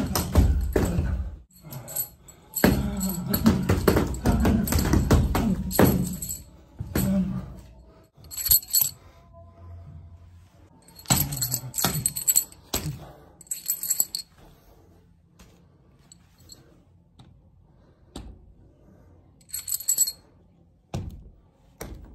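Flurries of rapid knocks and slaps as a padded training dummy with jutting arms is struck with fists and forearms. The flurries come in bursts with pauses between, and short metallic jingles come now and then.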